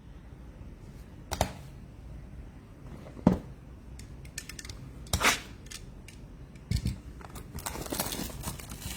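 Trading cards and their packaging handled on a table: a few sharp taps and clicks spaced a second or two apart, then crinkling of a wrapper near the end.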